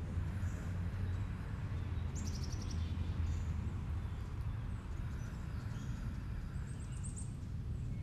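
Outdoor ambience: a steady low rumble with birds chirping, a quick run of high repeated chirps about two seconds in and another near the end.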